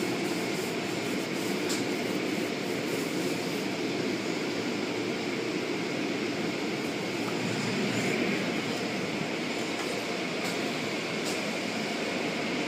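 Automatic car wash heard from inside the car: soft-cloth brushes and water spray washing over the body and windows make a steady rushing noise, with occasional light ticks against the glass.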